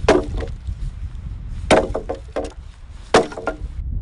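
Axe chopping firewood: three sharp blows into a log about a second and a half apart, each followed by a brief splintering crackle. A low wind rumble on the microphone runs underneath.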